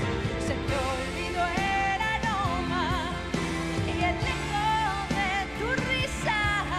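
A woman singing a pop song with vibrato and wavering runs, backed by piano and band.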